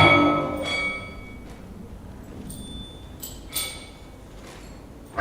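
Percussive music: a loud struck, ringing tone right at the start that fades over about a second, followed by a few fainter, higher struck tones.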